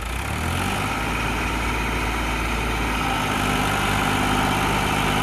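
Farmtrac 60 tractor's diesel engine running under load as it strains to pull a fully loaded sand trolley through loose sand. The steady engine note grows slightly louder about three seconds in.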